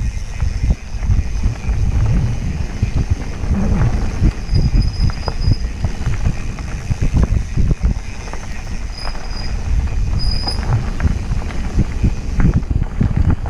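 Mountain bike riding on a dirt singletrack: an uneven low rumble of wind and knobby tyres on the trail, with scattered knocks and rattles from the bike over bumps and a few brief high squeaks.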